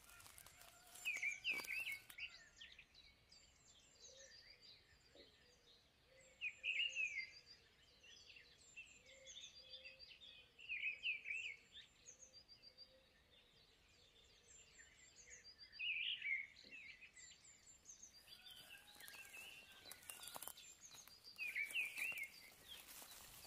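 Birds singing: one bird repeats a short, loud chirping phrase about every five seconds, over fainter high chirps from other birds.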